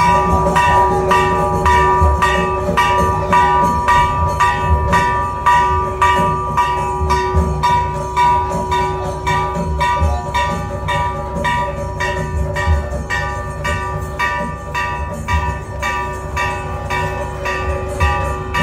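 Temple bells rung rapidly and steadily, about two or three strikes a second, their ringing carrying over between strikes, with irregular low drum thuds beneath: bell-ringing for the aarti offered at the festival chariot.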